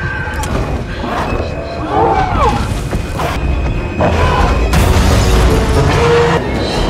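Film sound mix of a dinosaur fight: deep booming rumble and impacts under tense music with a held high tone. A short wavering cry comes about two seconds in, and a sudden heavy crash about four seconds in.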